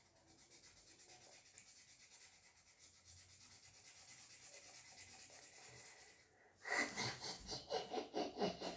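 A felt-tip marker scratches faintly as it colours on paper. About two-thirds of the way in, a boy's voice starts up louder, making sounds without clear words.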